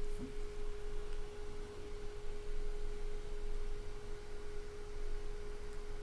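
A steady pure tone, a single held hum a little below 500 Hz, over a low background rumble.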